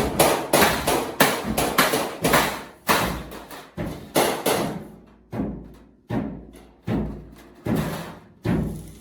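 Hammer blows on oil-drum sheet steel, each strike ringing briefly. The blows come quickly at first, then settle from about halfway into a slower, even beat of roughly one strike every three-quarters of a second.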